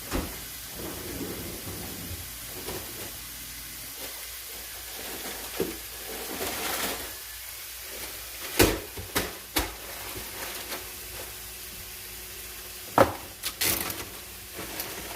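Food sizzling in a hot frying pan on the stove, with several sharp clacks of utensils or cookware, the loudest about halfway through and again near the end.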